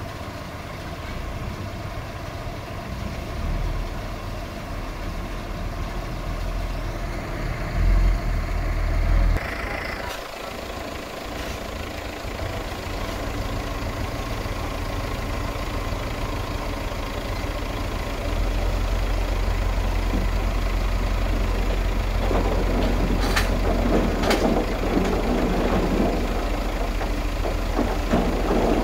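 Diesel dump truck engine running, growing louder about two-thirds of the way through as the loaded bed is raised. Near the end comes a gravelly rush of dirt sliding out of the tipping bed, with two sharp metallic clanks.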